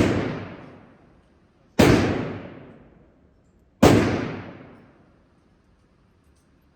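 Three revolver shots about two seconds apart, each a sharp crack whose echo dies away over a second or so.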